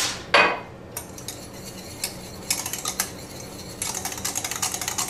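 Wire whisk clinking and scraping against a stainless steel saucepan while whisking butter and whisky into a cream sauce: scattered taps at first, then quick steady whisking near the end.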